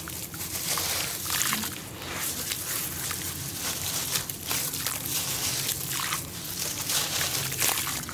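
Hands crumbling soaked clods of sandy dirt in a plastic tub of water: a run of short, irregular gritty crackles as the lumps break apart, with water sloshing and trickling.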